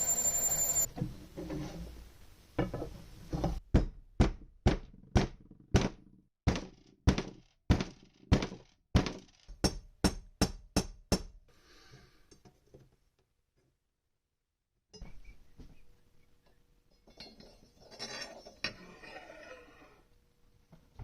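A running machine stops about a second in, then a string of about twenty sharp, ringing knocks follows, hammer blows on a metal part at roughly two a second, coming faster toward the end.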